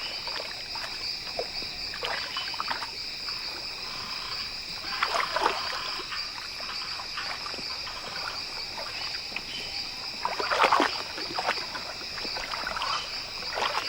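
Jaguar splashing and sloshing through shallow muddy water as it probes the riverbed for hidden fish, with a louder bout about five seconds in and another near eleven seconds. A steady high drone of insects runs underneath.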